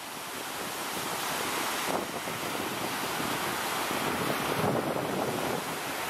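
Waves breaking and washing up a shingle beach: a steady rush of surf that swells and eases.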